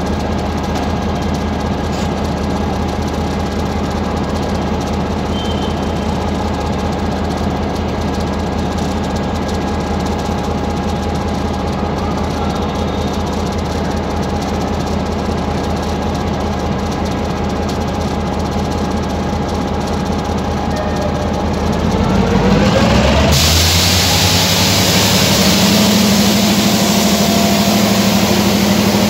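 Diesel-electric locomotive engine idling with a steady drone. About 22 seconds in, its note rises and gets louder as the engine is throttled up, and a loud hiss sets in with it.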